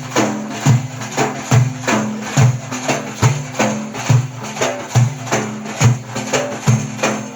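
Instrumental music between sung verses: a steady percussion beat of about two strikes a second over low held notes.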